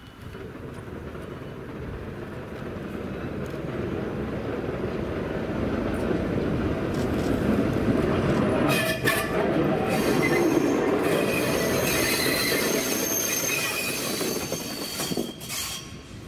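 SBB Ae 6/6 electric locomotive rolling past over the depot tracks. The rumble grows louder as it approaches, and from about nine seconds in the wheel flanges squeal on the curves and points for several seconds.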